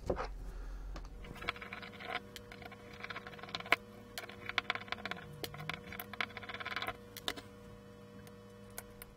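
Small screwdriver undoing the tiny Phillips screws of a metal optical block's cover plate: irregular light clicks and short scratchy scraping as the screws are turned out and set down.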